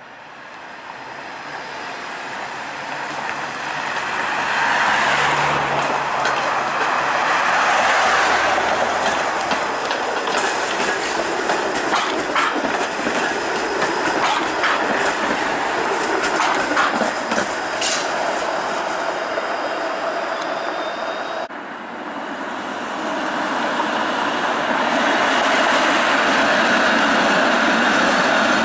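Toronto Flexity Outlook streetcar passing on its rails: a steady running noise that builds as it approaches, with a run of sharp clicks from the wheels as it goes by. About three-quarters of the way through the sound breaks off and a second streetcar pass builds up.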